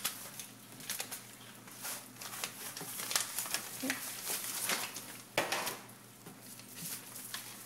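Plastic zip-top bag packed with powdered milk crinkling irregularly as it is squeezed and shaped by hand, with a louder rustle about five and a half seconds in.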